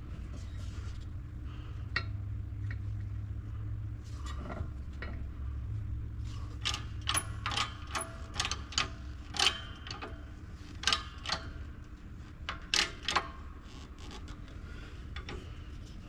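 Shop press working a water-pump hub onto its shaft: a run of sharp, irregular metallic clicks and clanks, about one or two a second, in the middle of the stretch. The hub is going on at an angle rather than straight. A low steady hum runs underneath and fades out about halfway through.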